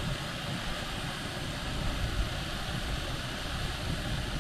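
Two gas canister stoves, a Jetboil Zip and a Kombat Cyclone, burning with a steady hiss as they heat water toward the boil, over an uneven low rumble.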